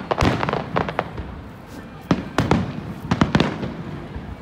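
Fireworks display: aerial shells going off in a series of sharp bangs, some in quick clusters. There is a brief lull about a second in, then the bangs pick up again from about two seconds in.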